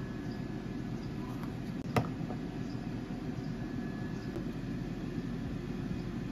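Clip-lock plastic food-storage lid being fitted onto its container, with one sharp plastic click about two seconds in and a few lighter ticks, over a steady low hum of room noise.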